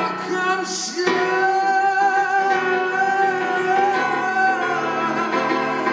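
A man singing a slow ballad live with grand piano accompaniment, holding one long, slightly wavering note from about a second in until past the middle.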